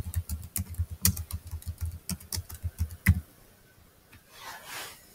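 Typing on a computer keyboard: a quick run of key clicks lasting about three seconds, then it stops.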